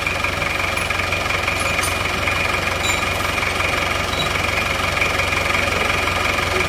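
Isuzu Panther diesel engine idling steadily with its usual diesel clatter, freshly overhauled with new piston rings and cylinder liners and running clean.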